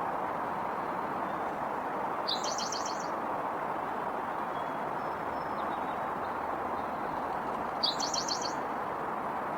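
A small bird gives a short, high, rapid trill twice, about two seconds in and again near the end, over a steady rumble of distant traffic noise.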